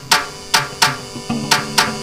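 Music: a beat of sharp drum hits, about three a second, over steady held notes.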